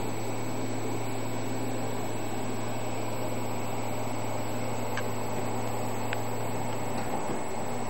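Diesel engine of a tracked piling rig running steadily at work: an even low hum with mechanical noise and no change in speed.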